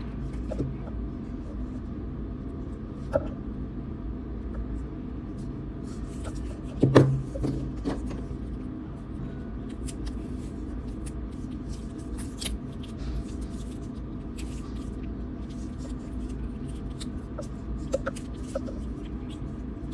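Hands working a wire and electrical tape onto a battery-filled PVC tube: scattered small clicks and rustles, with one louder knock about seven seconds in, over a steady low hum.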